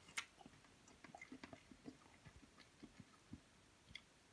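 Near silence with faint, irregular small clicks and smacks of a person chewing a mouthful of lobster.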